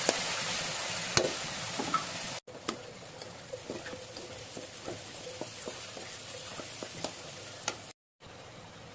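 Pieces of desi chicken frying in a pan of hot oil and spices, sizzling steadily while being stirred, with the spoon clicking and scraping against the pan. The sizzle cuts out briefly about two and a half seconds in, comes back quieter, and cuts out again near the end.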